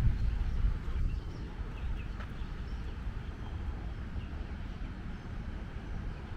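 Low, gusty rumble of wind buffeting the camera's microphone, strongest in the first second, with a few faint high bird chirps about two seconds in.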